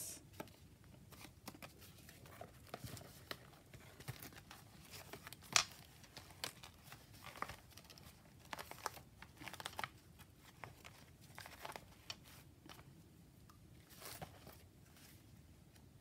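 Paper rustling and crinkling as a mixed-media paper journal and tag are handled and the pages turned, faint throughout, with scattered small crackles and one louder crackle about five seconds in.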